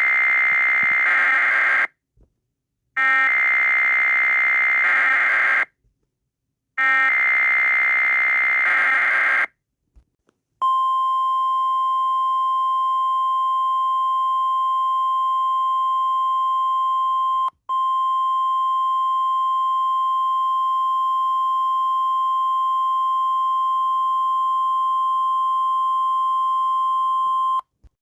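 Simulated Emergency Alert System header: three bursts of SAME digital data tones, each a couple of seconds long with about a second's gap between them. These are followed by the NOAA Weather Radio 1050 Hz alert tone, one steady tone held for about 17 seconds with a brief dropout midway.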